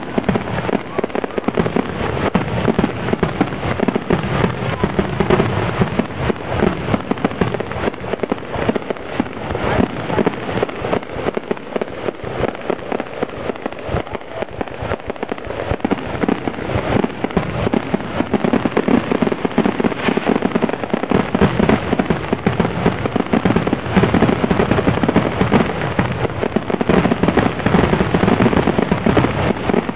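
Fireworks grand finale: a dense, continuous barrage of shell bursts and crackling reports, loud throughout and getting denser and louder over the last third.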